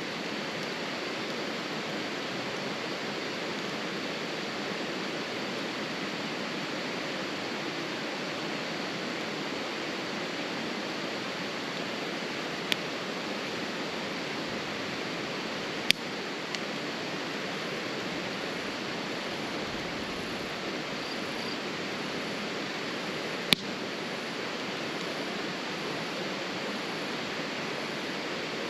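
A wood campfire burning in a small steel fire pit, with sharp single pops three times over a steady rushing hiss.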